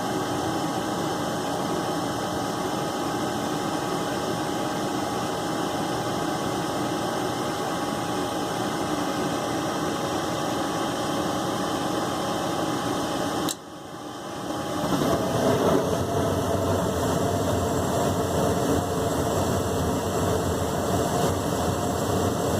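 Gas furnace running through its start-up cycle with a steady mechanical hum. About thirteen and a half seconds in there is a sharp click and a brief drop, and then a louder hum builds up over a second or two and runs on. With its flame sensor freshly cleaned, the furnace stays on instead of shutting off.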